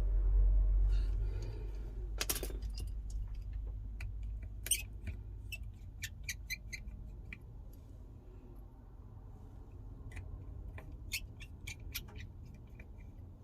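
Small repair tools, a screwdriver and tweezers, clicking and tapping against an iPhone 12's internal parts and screws in scattered sharp ticks. The strongest tick comes about two seconds in. A low hum sits underneath and is strongest in the first couple of seconds.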